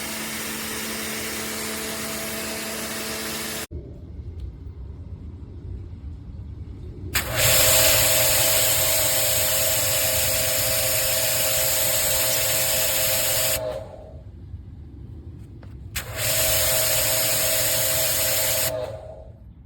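Pressure washer spraying through a 16-inch undercarriage cleaner. A steady machine whine cuts off suddenly after a few seconds, then comes a loud, even spray hiss with a steady tone for about six seconds, and another for about three seconds near the end.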